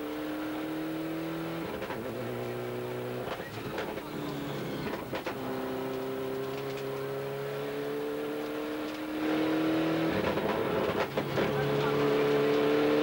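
A Ford rally car's engine heard from inside the cockpit, running hard along a twisting stage. Its pitch climbs slowly and then steps several times as gears are changed, with a few sharp knocks along the way, and it gets louder about nine seconds in.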